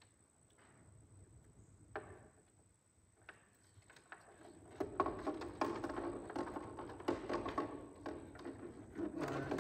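Hands working a plastic LED marker light housing and its wiring into a truck's side mirror housing: a few separate clicks at first, then from about halfway a busier run of small plastic clicks, taps and rattles.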